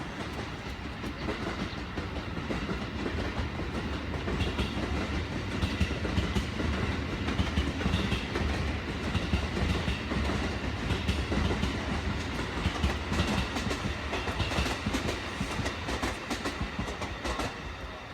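Japanese passenger train running along the track: a steady low rumble with repeated clicks of the wheels over the rail joints. It grows louder about four seconds in and eases near the end.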